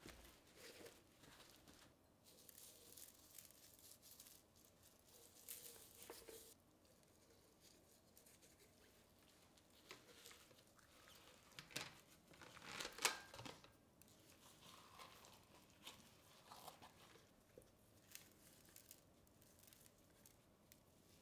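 Faint rustling, crinkling and soft wet handling noises from gloved hands working a raw whole chicken on a metal baking tray, lifting it and loosening the skin. A few louder clicks and rustles come a little past halfway.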